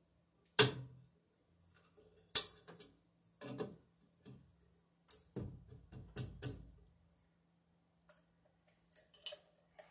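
Sharp clicks and knocks of electrical cable and a plastic ceiling box being handled, the two loudest snaps about half a second and two and a half seconds in, then a run of rattling knocks around five to six and a half seconds and light ticks near the end. A faint steady hum runs underneath.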